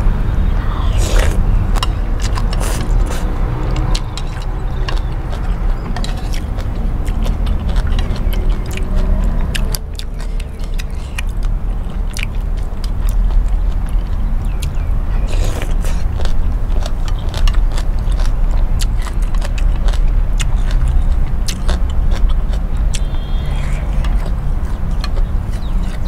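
Close-miked eating of beef noodle soup: chewing and slurping yellow egg noodles and beef, with many short clicks and small scrapes of spoon and chopsticks, over a steady low rumble.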